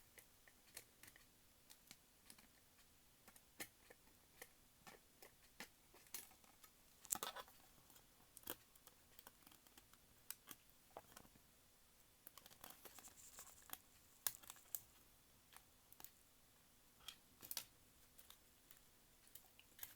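Faint, scattered clicks and light taps of small plastic parts being handled as the hinged front cover of a cassette player is fitted into place.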